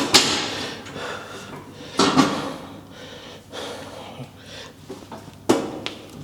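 Gym weight equipment clanking: three sharp metal knocks, each ringing briefly, at the start, about two seconds in and near the end.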